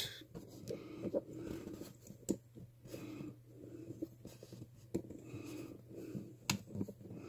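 Faint handling noise of a toothed rubber belt being pulled through a small plastic belt clip: soft rubbing with a few light clicks, over a low steady hum.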